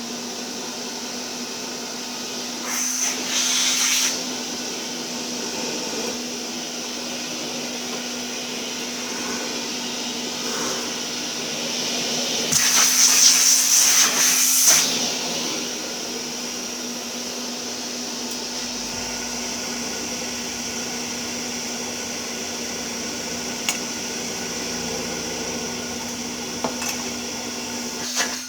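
Hoover Constellation 822A canister vacuum cleaner running steadily, a motor hum with a high whine. The air rush swells louder twice, around three seconds in and for a couple of seconds in the middle, and a few clicks come near the end.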